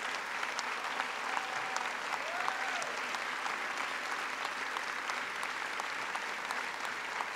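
An audience applauding steadily, a dense, even patter of many hands clapping that welcomes a speaker to the stage.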